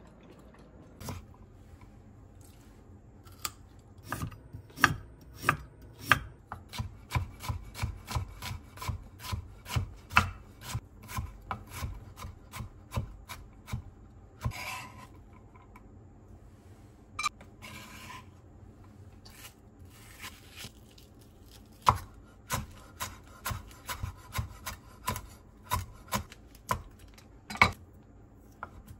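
Knife chopping food on a cutting board in runs of quick, even strokes, about two to three a second, with a pause in the middle and a couple of short scrapes.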